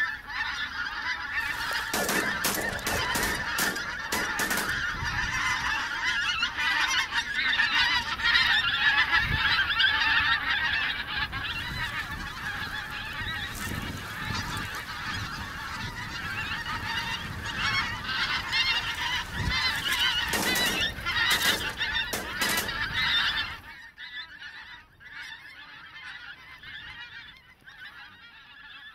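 A large flock of wild geese honking in a dense, continuous chorus, with a few brief sharp knocks mixed in. About three-quarters of the way through the chorus drops off suddenly, leaving fainter calling.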